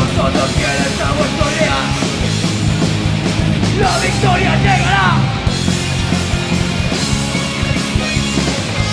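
A live heavy metal / hardcore punk band playing loud: distorted electric guitars, bass and a drum kit, with a wavering high line around four to five seconds in.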